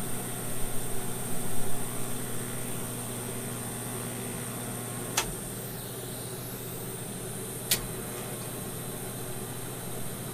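TIG welding arc on the steel control-yoke tube: a steady hiss over the welder's hum. Two sharp clicks come about five and seven and a half seconds in, as the arc is stopped and struck again.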